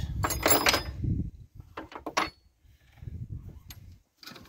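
Rustling and knocking as hands grip and work the alternator on the engine, with a few sharp clicks in between.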